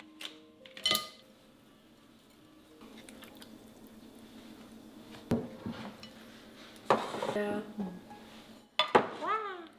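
Ceramic bowls and plates clinking and knocking as they are handled and set down on a wooden table, with scattered sharp clicks from chopsticks and a plastic tray. The loudest clink comes near the end.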